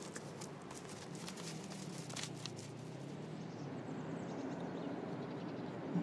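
Faint, irregular clicks and scuffs from red foxes moving and feeding close by, over a low steady hum.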